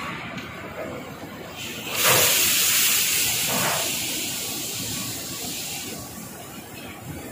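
Woodchips pouring out of an opened crane grab bucket into a hopper: a loud rushing hiss that starts suddenly about two seconds in and fades over the next four seconds, over a steady machinery background.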